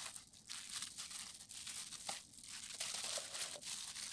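Disposable plastic glove crinkling in a run of short, irregular rustles as a hand lays and presses marinated cutlassfish pieces into a pot.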